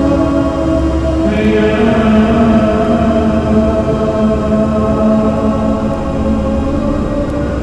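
Soundscape music of chanted, choir-like voices holding long drone notes. About a second and a half in, a new lower note with brighter overtones takes over and is held to near the end, over a steady low rumble.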